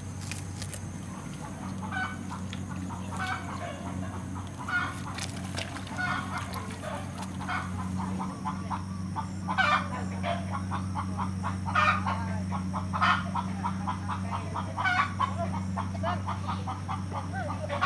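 Chickens clucking over and over, short calls that come more often and louder in the second half, over a steady low hum.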